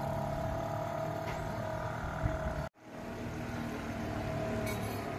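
Small boat's outboard motor running steadily. The sound drops out abruptly for a moment about halfway through, then a similar steady hum carries on.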